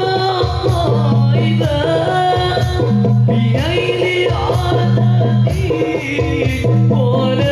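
Sholawat devotional song: a voice singing over hand drums and a steady bass line.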